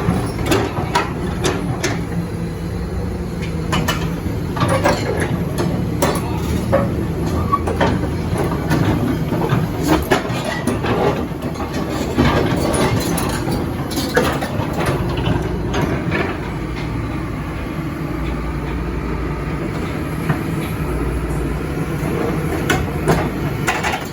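Kobelco excavator's diesel engine running steadily, with irregular metallic clanks and knocks from its steel tracks as it climbs onto a self-loader truck.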